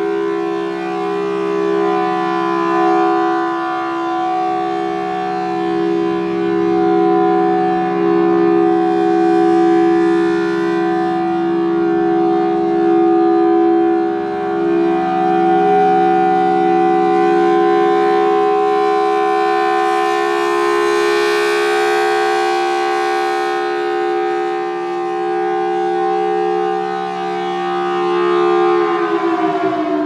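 Federal Signal Thunderbolt 1003 rotating-horn siren sounding a steady full-alert tone. It swells and fades in loudness as the horn turns, and its pitch wavers slightly, which the uploader puts down to the unit being sick. Right at the end the pitch starts to fall as it begins to wind down.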